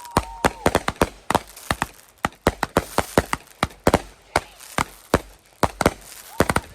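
Fireworks popping in a rapid, irregular run of sharp cracks, several a second.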